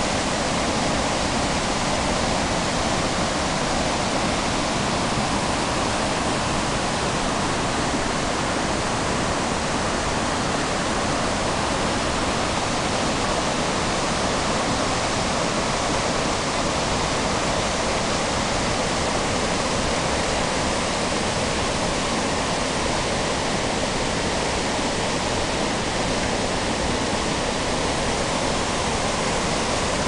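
Whitewater of a boulder-strewn mountain stream rushing over rocks and small cascades, a steady, even rush of water that never lets up.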